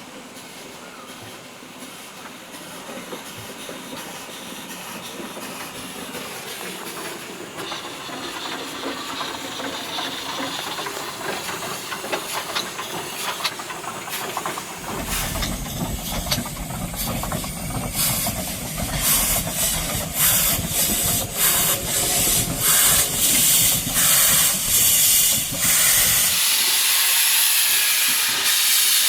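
Steam locomotive hissing steam and growing louder as it draws near. About halfway in a low rumble joins, followed by rhythmic exhaust chuffs of about two a second. The chuffing stops near the end, leaving a loud, steady hiss of steam.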